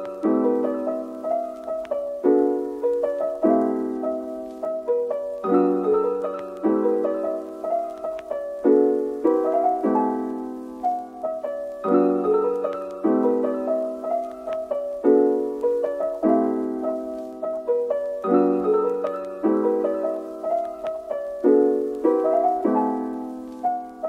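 Background music: a gentle piano tune with chords and notes struck at an even, unhurried pace.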